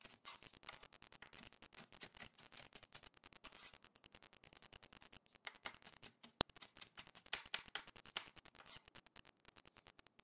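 Kitchen knife slicing through green beans and tapping on a wooden cutting board in quick, irregular cuts, with one sharp click about six seconds in.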